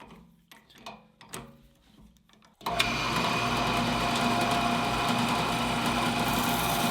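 A few light clicks and handling noises, then about two and a half seconds in a drill press motor switches on abruptly and runs steadily, spinning a wire wheel.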